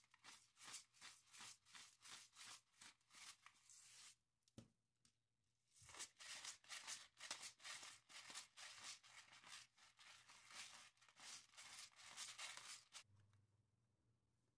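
Seasoning shakers shaken over a plate of breadcrumbs: faint, quick rattling shakes, about three to four a second. They pause about four seconds in, start again near six seconds, and stop about thirteen seconds in.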